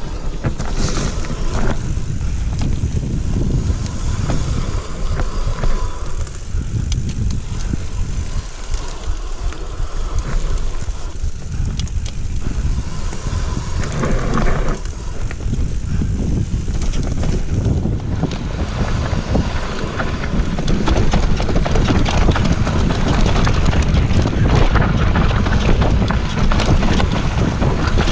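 Wind buffeting the microphone of a chest-mounted camera on a fast mountain-bike descent, over the rush of knobbly tyres on a dirt and leaf-covered trail and frequent rattles and knocks of the bike over bumps. It gets louder about two-thirds of the way through as the speed picks up.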